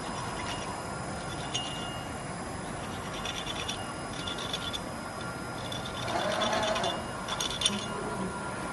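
Gantry CNC drilling-milling machine's spindle cutting a round metal workpiece: a steady machine whine under intermittent scratchy, chattering cutting noise. The cutting grows louder and rougher for about a second, about six seconds in.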